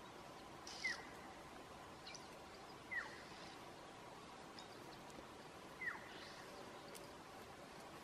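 Faint, short animal call that drops steeply in pitch, heard four times about every two to three seconds, over a few faint higher chirps.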